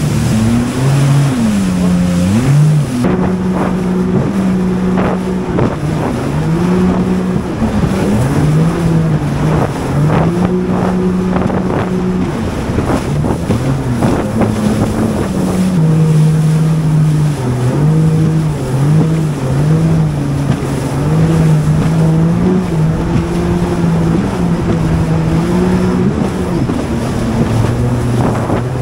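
Jet ski engine running under way, its pitch rising and falling with the throttle and held steady for stretches, over wind and water rush, with sharp splashes during the first half.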